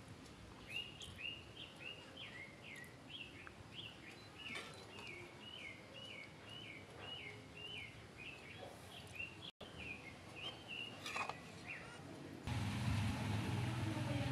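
A bird calling a long run of short, repeated chirping notes, about two a second, over a faint background with a few light clicks. About two seconds before the end the birdsong gives way to a louder steady low rumbling noise.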